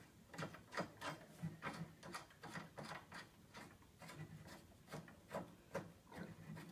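Faint, irregular small clicks and scrapes of a nut being screwed by hand onto a scooter's wheel axle bolt.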